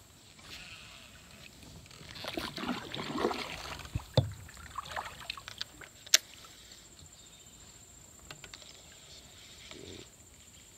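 Kayak paddling: paddle strokes splashing and washing in the water for a couple of seconds, followed by a few sharp knocks, the loudest about six seconds in.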